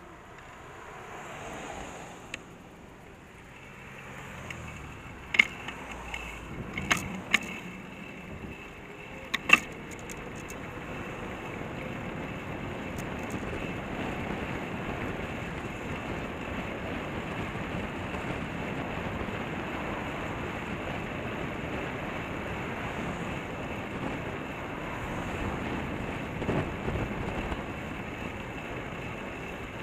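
Wind rushing over the microphone of a bike-mounted camera, with tyre and road noise, as a bicycle rides downhill at speed. The noise grows louder over the first ten seconds and then holds steady. A few sharp knocks come between about five and ten seconds in.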